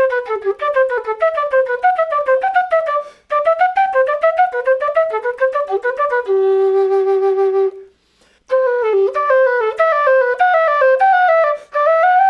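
Quena (Andean notched end-blown flute) playing a fast finger exercise: quick runs of separate notes climbing and falling in a repeating pattern. About six seconds in, a long held low note, a brief break, then the runs start again.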